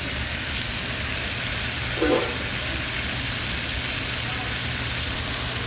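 Skin-on chicken breasts sizzling in oil in a sauté pan: a steady frying hiss over a low steady hum, with one short louder sound about two seconds in.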